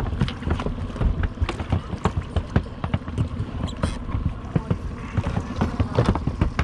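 Small waves slapping irregularly against the aluminum hull of a drifting boat, giving a string of sharp knocks and splashes.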